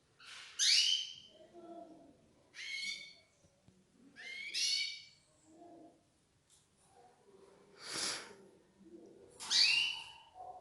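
Canaries calling: a few separate short calls that sweep downward in pitch, spaced about two seconds apart, with one harsher, rougher call about eight seconds in.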